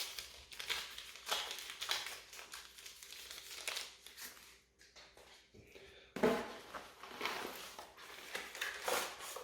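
Packaging being handled and crinkling as accessories are unwrapped and taken out, in irregular rustles with a sharper crackle about six seconds in.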